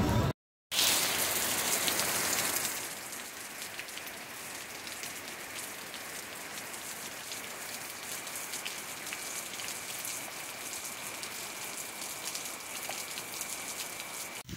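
Rain falling steadily on leaves and ground: an even hiss with scattered drop ticks, louder for the first couple of seconds after a brief break to silence. A faint, thin, steady high tone joins about halfway.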